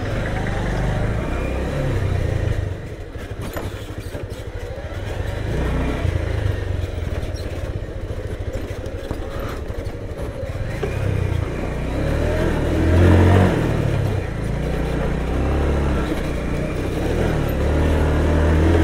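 Single-cylinder Bajaj Pulsar motorcycle engine running under load with two riders aboard on a rough hill track, its note rising and falling, loudest about two thirds of the way through and again near the end.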